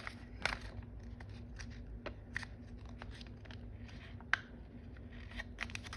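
Sheet of paper being folded and creased by hand, with irregular small crinkles and taps, one sharper snap about four seconds in, over a steady low hum.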